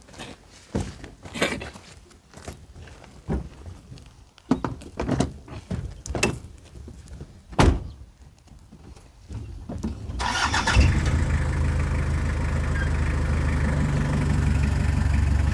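A series of irregular sharp knocks and taps. About two-thirds of the way in, a pickup truck's engine starts and then runs steadily.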